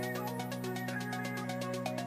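Background music: held chords over a fast, even ticking beat.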